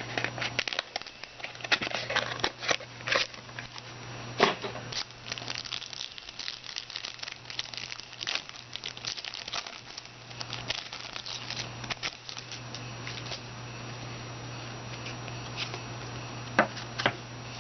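Foil trading-card pack wrapper crinkling and crackling as it is torn open and the cards are handled, in irregular bursts that are busiest in the first half, over a steady low hum.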